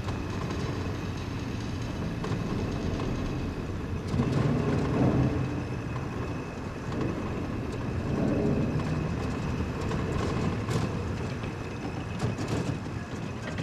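Car engine running and the car rumbling along the railroad track inside a train tunnel, a low rumble that swells twice, with a few sharp knocks near the end.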